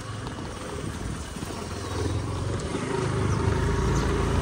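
Vehicle running on the road: a steady low rumble with road noise, growing a little louder toward the end.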